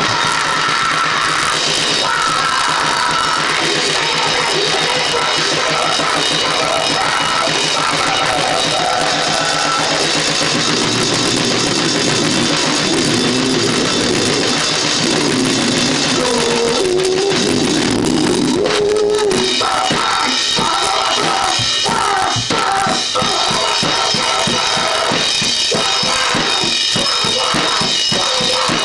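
Loud live noise-rock playing: a drum kit pounded fast under a dense, continuous wall of distorted noise. About two-thirds of the way through, the rapid drum strokes come to the fore.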